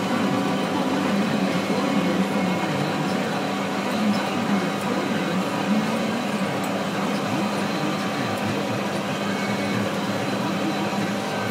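Case IH MX170 tractor running steadily under load while driving a New Holland 1432 discbine mower through hay, a constant engine and driveline drone heard from inside the tractor cab.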